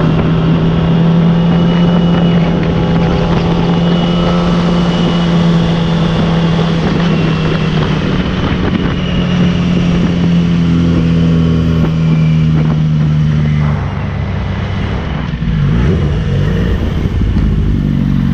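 Yamaha YZF-R6 inline-four engine running at a steady pitch on the move, with wind noise over the microphone. About fourteen seconds in, the engine note drops and wavers briefly, then settles at a steady pitch again.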